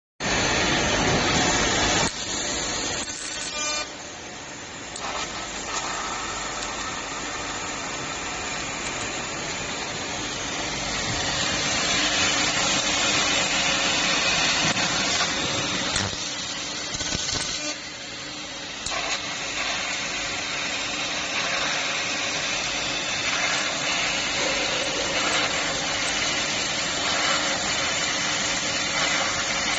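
Fiber laser cutting machine cutting thick steel plate: a steady hiss from the cutting head and its gas jet, with sparks spraying through the kerf. The level drops a couple of seconds in and dips again about two-thirds through, with a few faint ticks.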